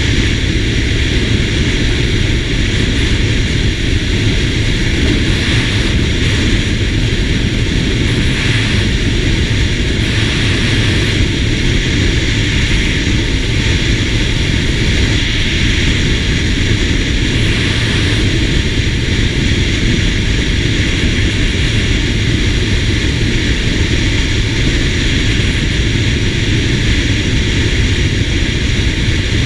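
SYM GTS 250 single-cylinder scooter cruising at steady road speed: a constant rush of wind over the mounted camera's microphone mixed with the engine's drone, with no change in speed.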